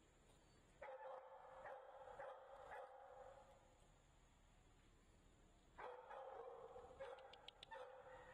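A dog whining faintly in two long, drawn-out calls, each about two and a half seconds, a few seconds apart.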